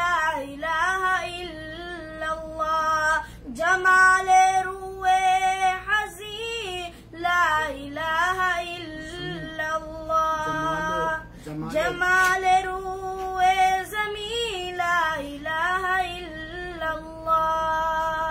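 A boy singing an Urdu devotional nazm solo in a high voice. He holds long notes with wavering ornaments and takes short breaths between phrases.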